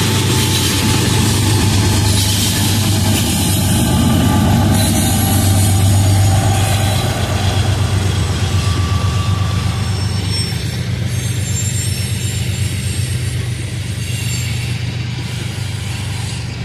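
A Norfolk Southern diesel freight locomotive runs past with a steady engine drone, loudest in the first half. From about ten seconds in, the freight cars roll by with a rapid rhythm of wheels on the rails.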